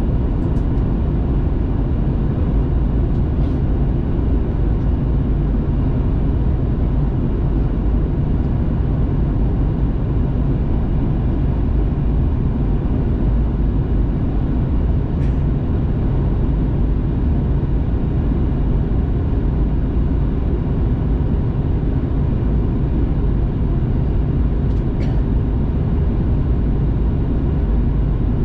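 Steady cabin noise inside a Boeing 737-800 on final approach: a constant low drone of rushing air and its CFM56 jet engines, with no change in level and only a few faint small clicks.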